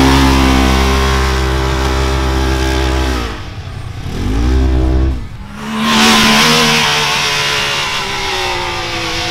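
Side-by-side UTV engines under throttle on a sand hill climb. The Polaris General's 1000cc engine holds a steady high note that cuts off about three seconds in, then comes back briefly. From about six seconds in another engine runs with a slowly falling note.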